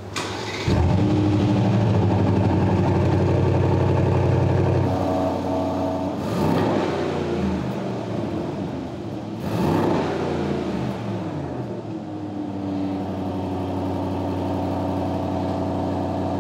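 Aston Martin DBX's AMG-sourced twin-turbo V8 starting up with a sudden loud flare and holding a high idle for a few seconds. It gives two brief rev blips, then settles to a steadier, quieter idle.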